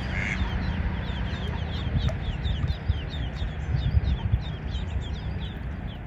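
Mallard ducklings peeping: a rapid run of short, high, falling peeps, several a second, over a low steady rumble.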